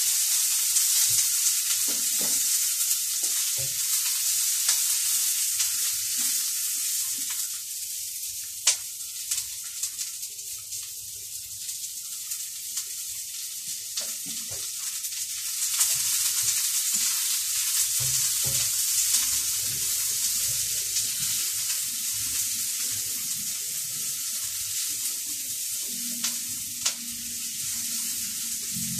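A steady high hiss, the loudest sound, with scattered light taps of a knife on a plastic cutting board as a whole fish is cut.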